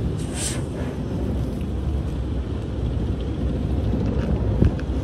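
Tunnel car wash heard from inside the car's cabin: a steady low rumble of the wash brushes and machinery working over the car. A short hiss of spray comes about half a second in, and a brief thump near the end.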